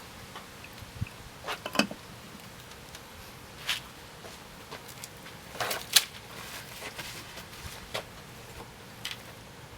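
Scattered light clicks and knocks of parts and tools being handled, the sharpest about six seconds in, over a faint steady background hum.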